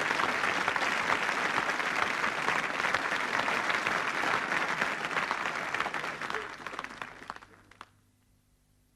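Audience applauding. The clapping dies away over the last couple of seconds, with a few last claps near the end.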